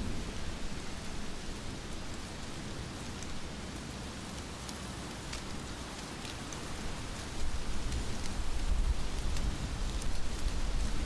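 Heavy rain falling steadily, with scattered sharp drop ticks. About seven seconds in, a low rumble comes in and the whole sound grows louder.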